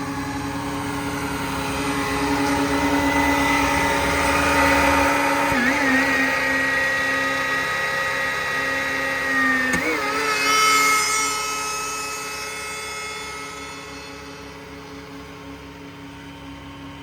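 Truck-mounted hydraulically driven air compressor running and building air pressure, with a steady mechanical whine; the pitch dips briefly twice, and the sound slowly eases off through the second half.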